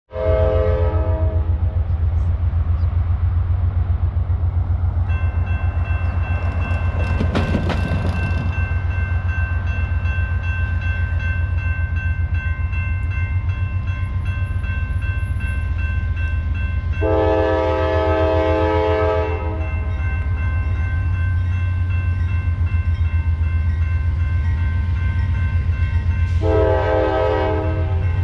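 CSX diesel freight locomotives passing close by, their engines running with a heavy pulsing rumble. The multi-note air horn sounds at the start, again in a long blast about 17 seconds in, and once more near the end. Steady high tones join in about 5 seconds in.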